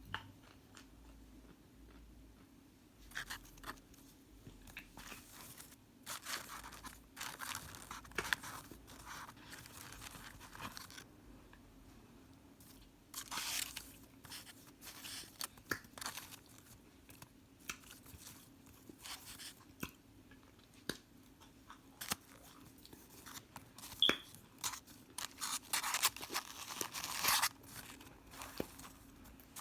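Close-up crunching and chewing as someone bites into hard microwaved cornstarch chunks, in irregular bouts of crackly bites with quieter pauses between.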